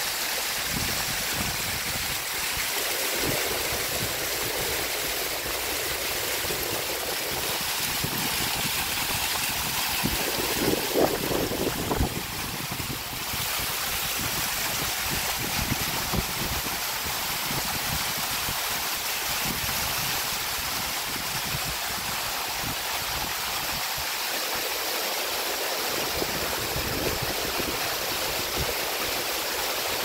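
Waterfall rushing steadily, falling water spraying down a rock face, with a brief louder rumble about eleven seconds in.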